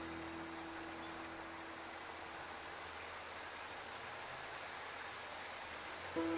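Crickets chirping in a steady rhythm, about two short chirps a second, over a faint outdoor hiss. A held note of background music fades over the first couple of seconds, and the music comes back in just before the end.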